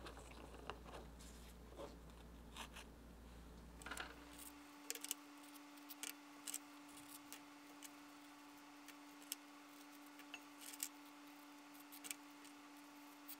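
Faint, scattered scrapes and clicks of a knife scraping cream filling off Oreo cookies and of the cookies being handled on a tray.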